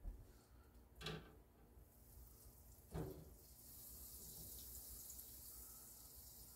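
Faint water running from a kitchen tap, a steady hiss that starts about two seconds in, with two soft knocks before it.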